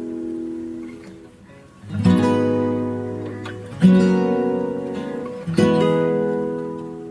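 Background music: slow acoustic guitar chords, strummed about once every two seconds and left to ring and fade.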